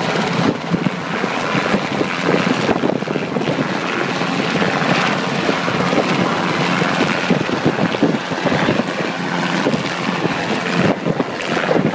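Light helicopter hovering low, its rotor and engine making a steady drone, with wind buffeting the microphone.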